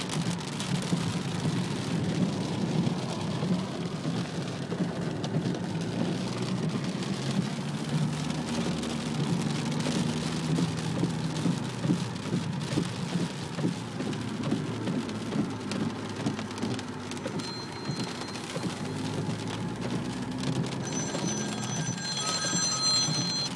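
Heavy rain drumming on a car roof, heard from inside the cabin, with a steady low rumble beneath it.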